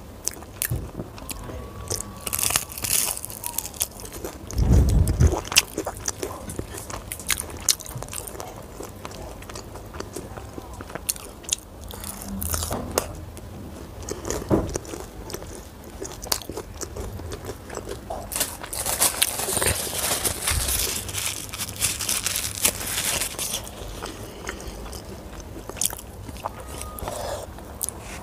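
Close-miked chewing of puri, chicken curry and yellow rice, with many small wet mouth clicks throughout. There is a dull thump about five seconds in, and crisper, noisier stretches near the start and again around twenty seconds in.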